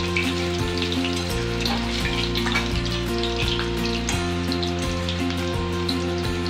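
Soya chunks sizzling and crackling as they fry in hot oil in a metal wok while they are stirred. Background music with held notes plays over it.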